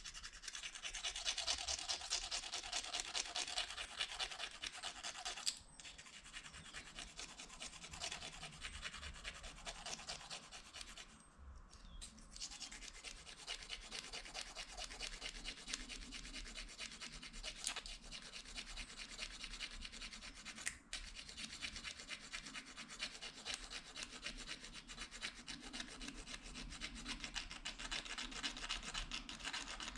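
Plastic fork scraped rapidly back and forth along the edge of a plastic spoon to sharpen it: a fast, continuous scraping that breaks off briefly about five and eleven seconds in.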